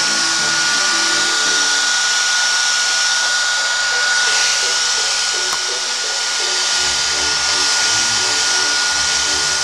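Hair dryer running steadily, blowing on a wet cat's fur after its bath: an even hiss with a constant whine.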